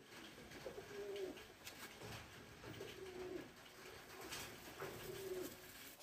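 Pigeons cooing: several low coos a second or two apart, with a couple of faint light taps.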